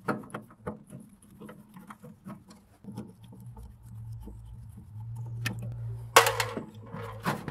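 Hand screwdriver backing screws out of a welder's sheet-metal panel: light, irregular clicks and scrapes of the tool against the screw heads and metal, with a louder clatter about six seconds in.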